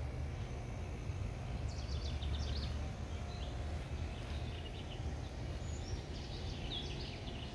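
Small birds chirping in short bursts over a steady low outdoor rumble.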